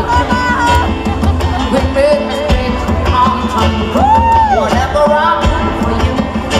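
Live pop band playing loudly, with a woman singing lead over drums and heavy bass. One long sung note rises and falls about four seconds in.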